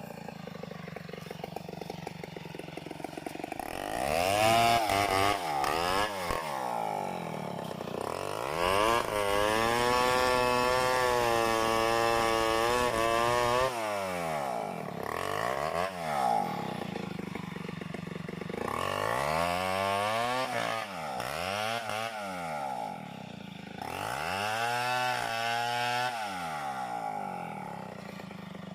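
Two-stroke chainsaw revving up and falling back again and again. About a third of the way in, it holds at high revs for several seconds.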